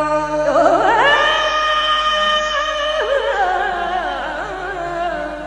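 Qawwali singing: a wordless held note that glides up about half a second in, then wavers with ornaments and slides down toward the end.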